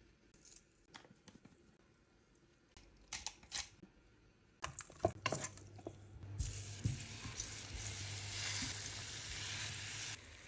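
A few light clicks and knocks of kitchen utensils, then from about five seconds in, food sizzling in hot oil in a pan. The sizzle grows louder about a second later and cuts off suddenly near the end.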